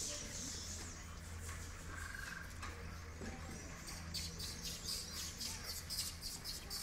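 High-pitched bird chirping that starts about four seconds in and repeats rapidly, several chirps a second, over a low steady hum of outdoor ambience.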